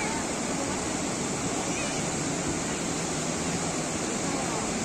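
Small waves breaking on a sandy beach, a steady rush of surf.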